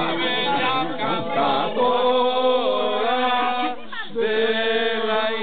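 A small amateur choir of men and women singing unaccompanied, in long held notes. There is a short break about three-quarters of the way through, then the singing goes on.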